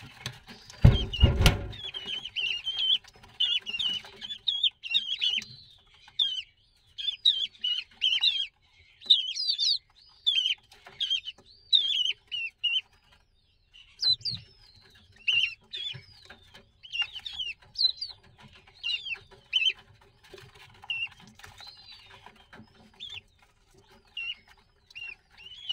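Common ringed plover chicks, a few days old, peeping over and over in short high calls, with a brief lull about halfway. A dull thump about a second in, and a faint steady hum underneath.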